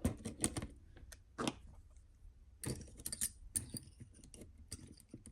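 Irregular light clicks and ticks of small metal parts and a hand tool as the steering servo is worked off the front axle of a 1:12 scale RC crawler.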